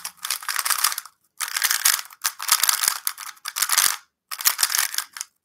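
A Cubicle GTS3 LM magnetic 3x3 speedcube being turned very fast in a speedsolve: dense runs of plastic clicking and clacking from the layers, broken by short pauses about one second and four seconds in.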